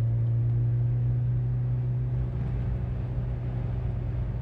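1987 Toyota Corolla FX16's four-cylinder engine running at a steady speed under way, heard through its stock exhaust with a MagnaFlow catalytic converter and a cheap Totalflow muffler; the pitch holds level.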